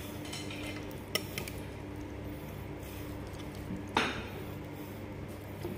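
Metal spoon moving through a bowl of soup with soft squishing of the food, knocking against the ceramic bowl once lightly about a second in and more sharply about four seconds in, over a steady low room hum.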